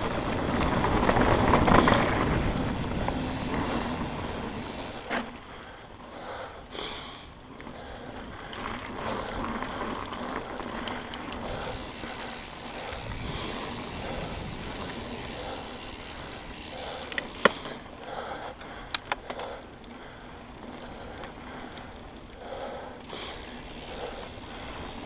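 Mountain bike riding fast along dirt singletrack, heard close up: a steady rush of tyres on dirt and moving air, loudest in the first couple of seconds, with a few sharp knocks and rattles from the bike, the loudest about 17 seconds in and a quick pair about 19 seconds in.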